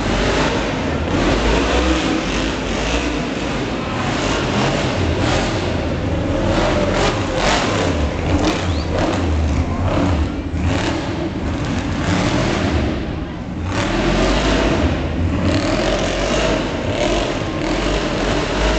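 Off-road pickup truck's engine revving hard and easing off as it is driven around a dirt course, with the noise of a crowd's voices underneath. The engine drops away briefly about two-thirds of the way through, then picks up again.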